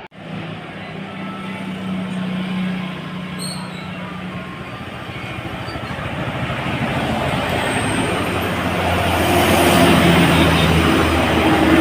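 Heavy road vehicle going past, its diesel engine and tyre noise building steadily and loudest over the last few seconds.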